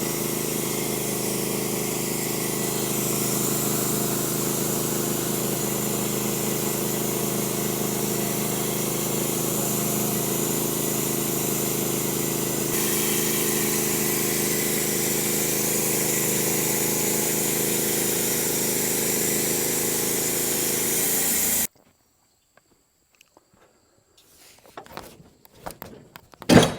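Norwood HD36v2 bandsaw mill sawing through an oak cant with a new blade, its engine running steadily under load over the hiss of the cut. The sound cuts off abruptly about 22 seconds in, followed by a few faint knocks and one loud knock near the end.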